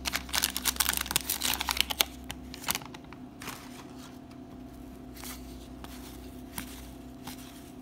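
Paper trading-card pack wrapper crinkling and tearing as it is pulled open, thick for about two seconds. Then quieter, scattered clicks of cardboard baseball cards being slid out and flipped through by hand, over a faint steady hum.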